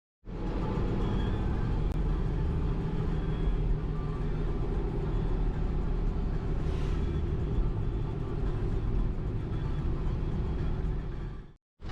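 A motor vehicle driving: a steady low rumble of engine and road noise that starts abruptly and cuts off near the end.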